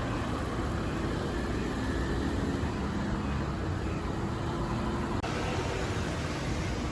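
Steady vehicle noise: an even rushing sound with a faint low engine hum underneath.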